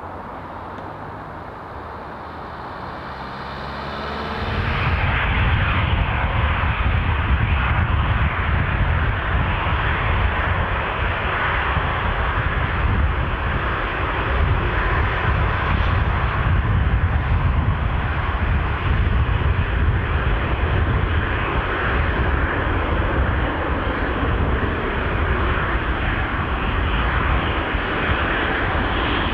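A Bombardier Dash 8 Q400 turboprop droning on approach with a steady propeller hum. About four and a half seconds in it gives way abruptly to the loud, steady roar of an Airbus A319's twin jet engines as the airliner moves along the runway.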